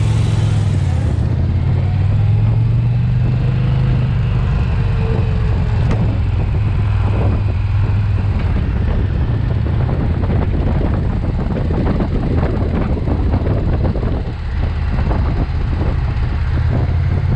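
2020 Indian Challenger's liquid-cooled V-twin running steadily at cruising speed, with wind buffeting the microphone that grows gustier from about six seconds in.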